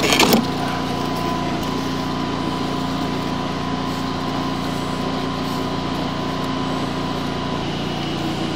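A sewer hydro-jetter's engine running steadily with a constant drone and hum. A brief louder clatter comes right at the start.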